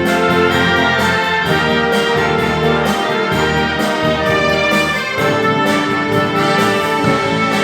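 Artistic whistling, a solo whistled melody performed over a brass-heavy orchestral backing track.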